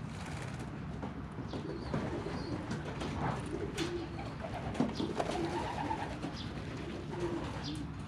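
Domestic pigeons cooing repeatedly while bathing in a shallow water tray, with scattered short splashes and wing flicks among them.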